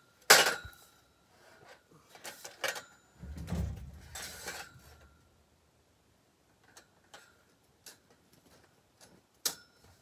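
Metal frame tubes of a temporary building clanking and clinking as they are handled and fitted together. A loud ringing clank comes just after the start and several more between about two and five seconds, with a brief low rumble among them. Lighter taps and ticks follow later.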